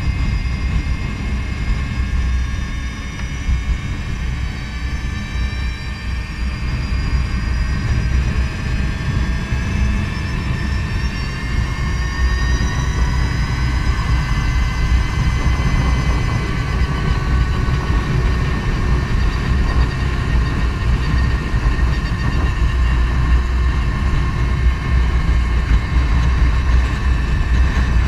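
Wind buffeting on the handlebar-mounted camera of a moving Energica Eva electric motorcycle, over a thin high whine from its electric drive that slides down and then back up in pitch as road speed changes. The wind rumble is the loudest part and grows a little louder after the first several seconds.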